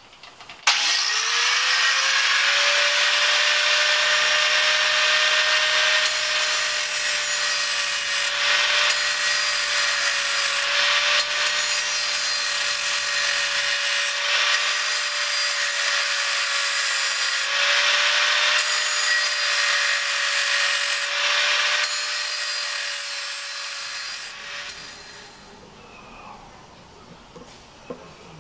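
Power grinder's abrasive wheel starting up and grinding metal: a whine that rises as the wheel spins up, then holds steady under a loud, harsh hiss of grinding. It fades and stops a few seconds before the end.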